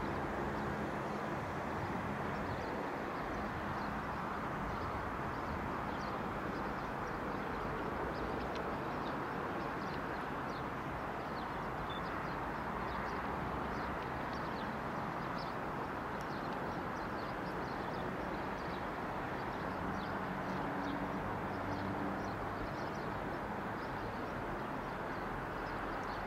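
Steady background rumble of distant road traffic, with frequent short, high chirps of small birds throughout.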